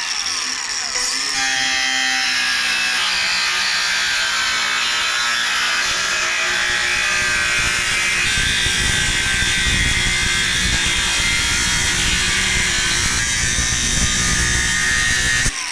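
Angle grinder with a cutting disc running under load, cutting through the metal hinge bracket of an aluminium ladder to take its legs off. The steady high whine and grinding go on for about fifteen seconds and cut off suddenly near the end.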